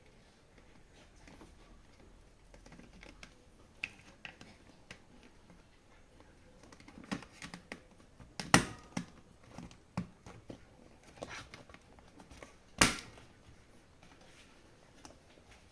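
Small clicks and knocks of hands handling parts as a speaker's trim ring is fitted into a Heineken mini keg, with two sharp, louder knocks about eight and a half and thirteen seconds in.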